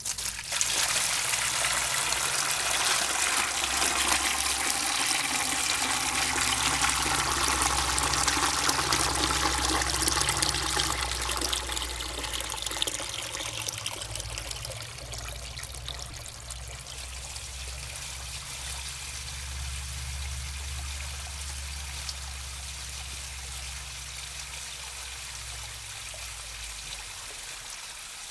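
Water gushing from a drain hose into a bucket as an Oliver 770's hydraulic tank is flushed out with clean water. It starts suddenly, splashing into the pail, and grows gradually quieter after about twelve seconds.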